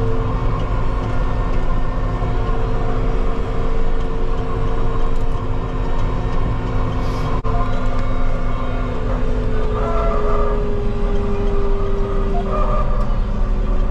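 Tractor's diesel engine running steadily at road speed, heard inside the cab, a constant droning hum over tyre and road rumble. Its pitch sags slightly about ten seconds in.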